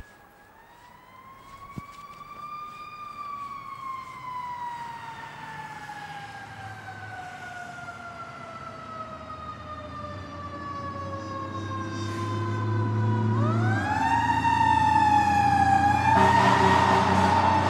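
An emergency-vehicle siren in a slow wail: its pitch rises, falls slowly for about ten seconds, then sweeps quickly back up about fourteen seconds in. It grows steadily louder over a low engine rumble, and a loud rush of noise joins near the end.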